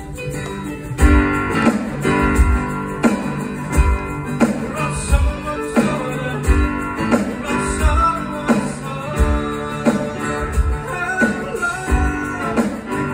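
Live band music from a stage show: strummed guitar chords over a steady low beat.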